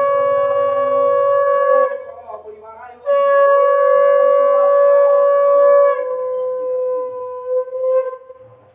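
Conch shell (shankha) blown in long, steady, loud blasts. One blast ends about two seconds in; a second starts about a second later, holds for several seconds and sags slightly in pitch before it stops near the end.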